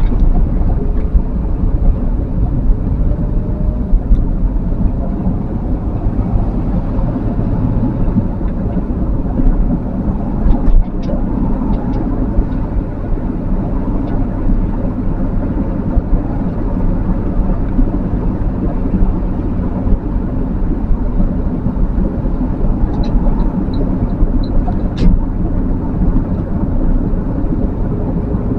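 Steady engine and road rumble of a vehicle driving through town traffic, mostly deep in pitch. A few light clicks come about a third of the way in, and near the end there is a quick run of four or five short, high beeps.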